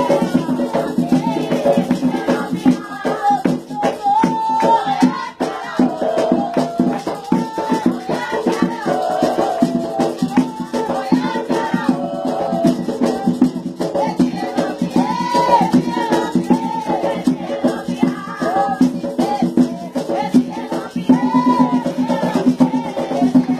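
Voices singing a chant together, with a rattle shaken in a steady rhythm.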